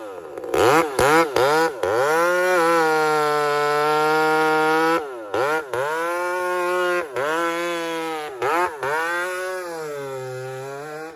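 Two-stroke chainsaw revved in quick blips, then held at high revs for a few seconds at a time. Between the held stretches it drops and picks up again, with the revs easing off gradually near the end before it stops abruptly.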